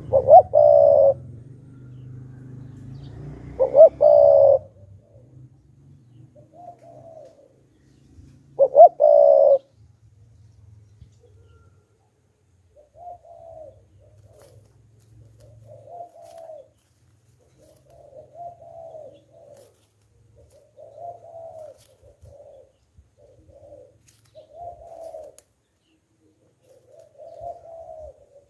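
Spotted dove cooing: three loud coos in the first ten seconds, then a run of softer, shorter coos about every two seconds.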